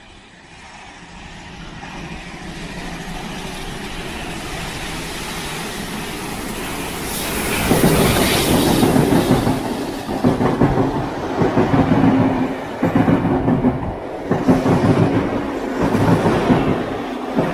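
Steam locomotive 3801, a streamlined C38-class Pacific, approaching and passing close by. It grows louder over the first several seconds and is loudest about eight seconds in. Its heritage passenger carriages then roll past with a regular clickety-clack of wheels over rail joints.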